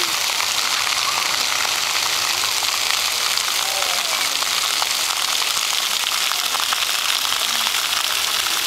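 Splash-pad ground jets spraying arcs of water that patter onto wet pavement, a steady hiss like rain.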